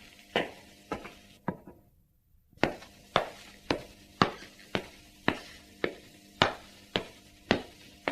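Footsteps of hard-soled leather dress shoes walking on a hard floor, about two steps a second, each step a sharp click with a short room echo. The steps break off for about a second about a second and a half in, then carry on at the same pace.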